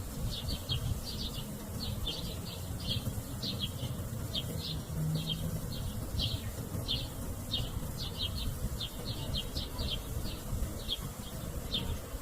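A bird giving short, high chip notes, two or three a second at an uneven pace, over a low rumble of wind.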